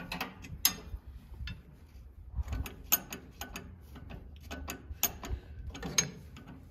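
Metal hand tool clicking and clinking against the nuts and brackets of a tractor engine as a nut is worked on, in irregular metallic clicks with a few sharper knocks.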